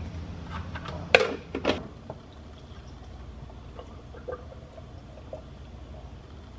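A few light clicks and two sharp knocks as collagen powder is scooped into a plastic shaker cup, then milk poured softly from the shaker over ice in a glass bottle.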